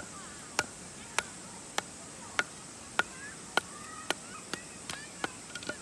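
Sharp knocks at an even pace, a little under two a second, coming faster near the end, over a steady high insect trill and faint bird chirps.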